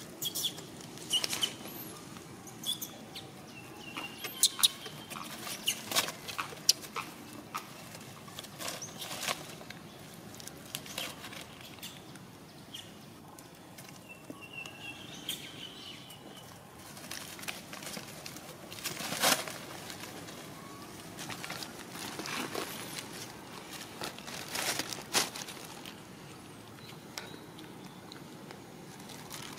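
Dry leaf litter rustling and crackling under macaques moving and handling twigs, with many scattered sharp clicks. A few short high chirps come in the first half and again around the middle.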